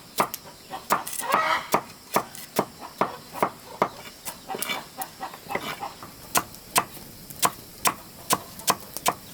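Steady chopping: a blade striking over and over, about two strokes a second.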